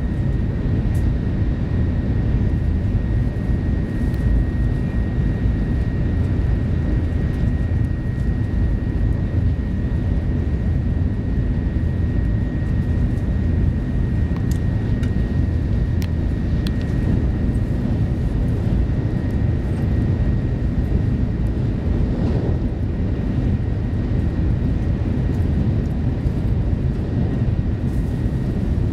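Cabin noise inside a Shinkansen Hikari running at high speed, around 270 km/h: a steady, deep rumble with a thin, steady high whine over it.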